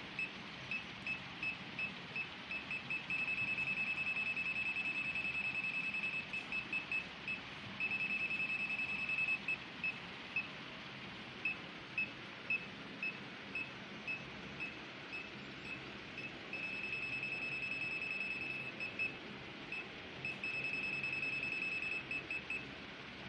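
ANENG SZ08 digital multimeter's non-contact voltage beeper sounding a high-pitched beep. Single beeps about twice a second speed up four times into rapid, near-continuous beeping as the meter picks up the field of live AC wiring.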